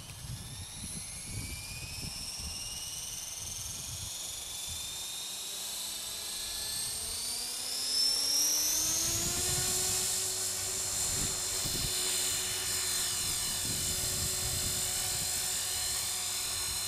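450-size electric radio-controlled helicopter spooling up on the ground: the motor and rotor whine rises steadily in pitch for about nine seconds, then holds steady at flying speed. The helicopter lifts off near the end.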